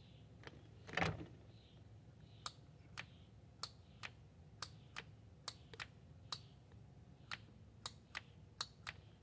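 Overdrive solenoid on a Triumph Spitfire 1500 gearbox clicking repeatedly: a string of sharp, faint clicks, about two a second and unevenly spaced, over a low steady hum. The clicking is the sign that the solenoid is switching the overdrive, working now that it has a new ground.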